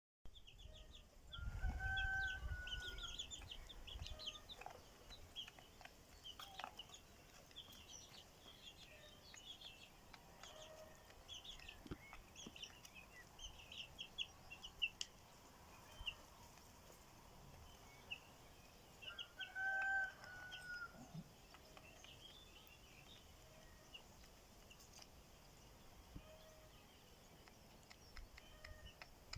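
Birds calling: two long held calls, one about two seconds in and one near twenty seconds, over many short high chirps from smaller birds throughout.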